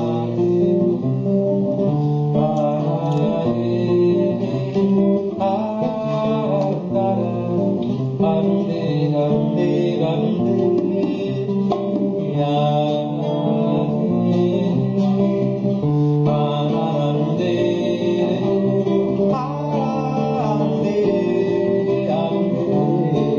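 Live band music during a soundcheck, led by a strummed guitar, playing steadily throughout.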